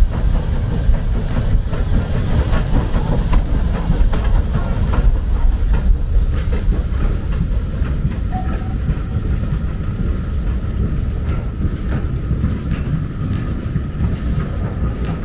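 Steam-hauled train running on the line: a heavy steady rumble with scattered knocks from the wheels and a steam hiss that thins out about halfway through.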